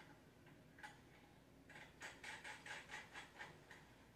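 Faint light clicks from bolts and nuts being worked on a wooden bench leg: one click, then a quick run of about four a second lasting some two seconds.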